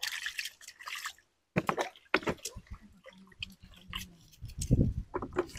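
Knife cutting raw radishes by hand: a run of short, irregular crisp crunches and clicks, beginning about a second and a half in after a brief hiss.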